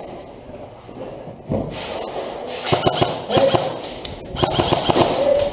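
Airsoft gun firing two short bursts of rapid clicking shots, the second about a second and a half after the first, with a single thump shortly before them.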